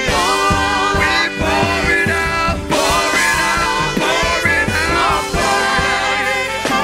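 Live gospel worship song: several singers on microphones singing together over a keyboard and drum band, with a steady drum beat under the voices.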